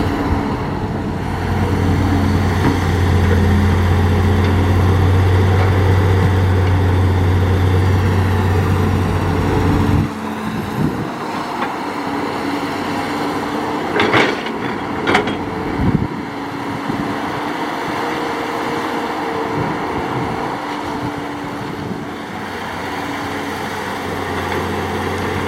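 Hitachi hydraulic excavator's diesel engine running under load with a heavy low drone, which eases off about ten seconds in. Around the middle, three sharp metallic knocks a second or so apart.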